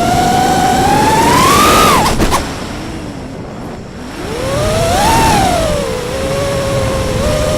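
FPV drone's electric motors whining, the pitch climbing under throttle and then cut back so they fall to a quieter rush of air for about two seconds, before spooling up again a little after four seconds in and settling into a steadier whine.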